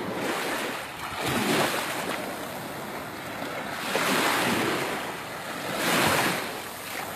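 Sea waves washing onto the shore, surging three times, about two seconds apart.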